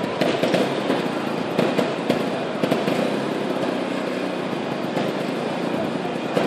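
Murmur of a large crowd echoing in a big indoor hall, with many short sharp clicks and knocks scattered through it.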